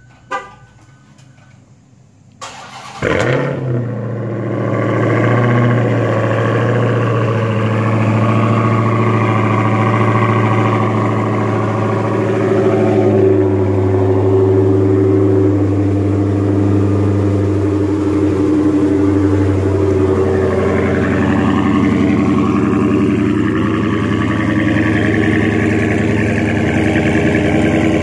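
Dodge Charger Hellcat's supercharged 6.2-litre HEMI V8 cold start. About two and a half seconds in, the starter cranks and the engine catches with a brief rev. It then settles into a loud, steady idle.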